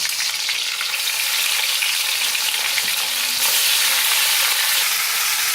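Fish heads sizzling steadily in hot mustard oil in a pan, just after being added, with the sizzle growing a little brighter about three and a half seconds in.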